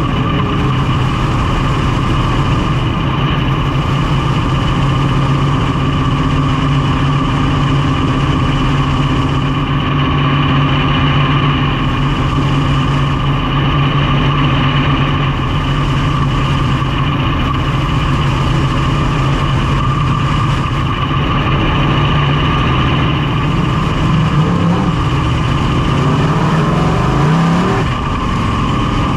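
Big-block V8 of a Super DIRTcar dirt modified running steadily at low pace-lap speed, heard from inside the cockpit. Near the end the revs rise and fall briefly a couple of times.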